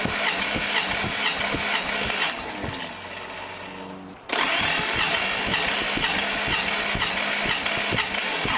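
Datsun 280ZX straight-six being cranked over on the starter with the spark plugs out for a compression test, in two long bursts with a quieter gap about two to four seconds in. The cylinders are puffing evenly as the engine turns.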